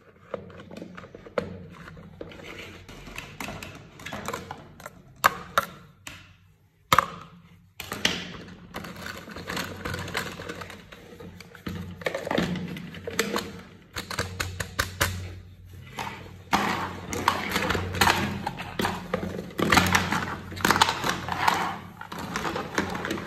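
Hard plastic sand toys clicking, tapping and knocking against each other and the wooden tabletop as they are handled and fitted together: an irregular patter of light taps with a few sharper clicks.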